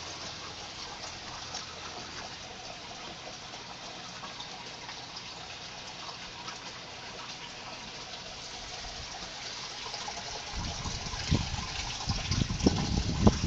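Water trickling and splashing steadily in an IBC aquaponics system. From about ten seconds in, irregular low rumbling thumps come in over it.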